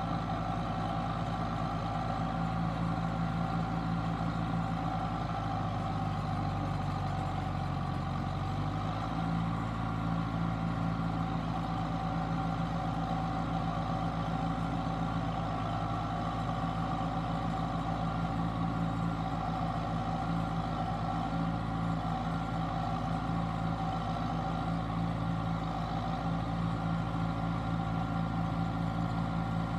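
John Deere 6330 tractor's diesel engine running steadily while its hydraulic boom mower arm is moved, with a brief change in the engine note about seven to nine seconds in.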